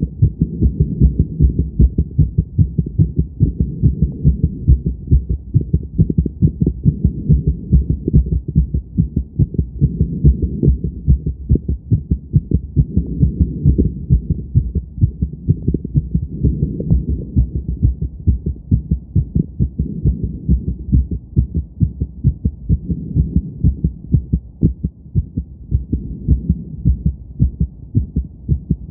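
Fast heartbeat heard through a stethoscope pressed to a woman's chest after exercise: quick, strong, evenly repeated beats.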